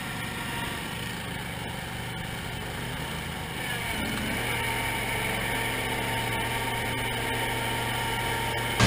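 Small garden tractor engine running steadily at an even speed, getting a little louder about four seconds in.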